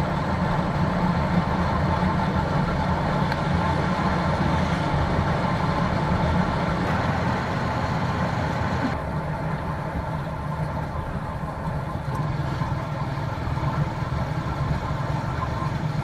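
Motorcycle engine running steadily under way, with road and wind noise.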